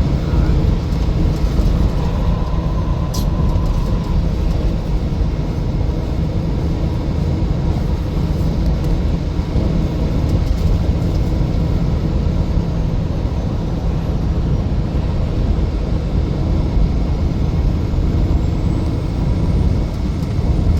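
Steady road and engine noise inside a moving vehicle's cabin at highway speed, with a short faint tone about two seconds in and a single click about a second later.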